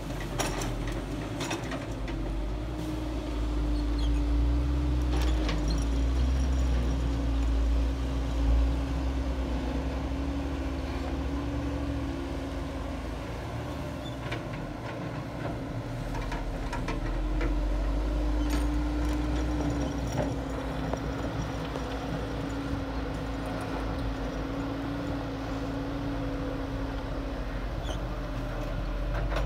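Diesel engines of a crawler excavator and a loaded dump truck running, a steady low rumble with a hum that wavers up and down, and a few scattered knocks.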